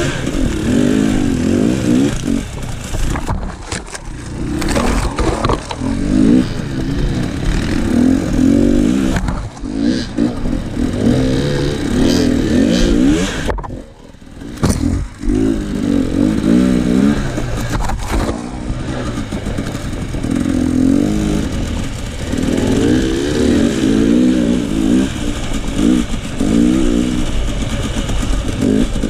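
KTM enduro dirt bike's engine revving up and down over and over as it is ridden along a trail, the pitch rising and falling with the throttle, easing off briefly about halfway.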